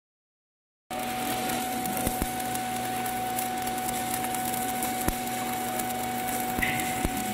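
Stick (shielded metal arc) welding on a steel pipe joint: the arc's steady crackling hiss with scattered sharp pops over a steady hum, starting about a second in.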